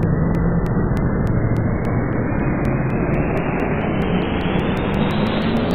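Loud, steady rushing rumble that rises gradually in pitch and brightness, with evenly spaced clicks that speed up from about three to about six a second.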